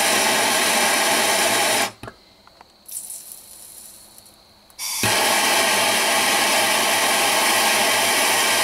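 Handheld gas torch flame hissing steadily as it heats a small brass carburetor jet for soldering. The hiss breaks off about two seconds in, leaving only faint small sounds, and comes back just as loud about five seconds in.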